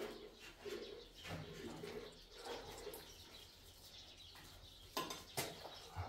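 Pigeons cooing softly in short low phrases, with two sharp knocks about five seconds in.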